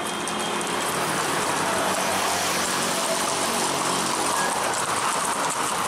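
A motor vehicle's engine running steadily under a continuous haze of street noise.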